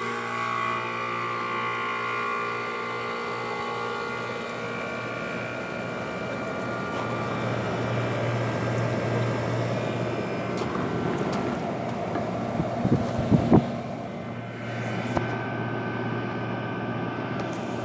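1981 Emerson Quiet Kool 18,000 BTU air conditioner starting up and running: the compressor's steady hum under the fan's blowing. A few loud knocks come about thirteen seconds in.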